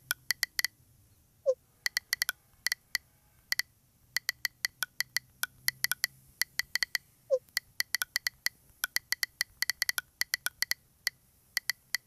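Smartphone on-screen keyboard key-press clicks in quick, irregular runs as messages are typed. Twice, about a second and a half in and again past halfway, a short rising pop marks a message being sent.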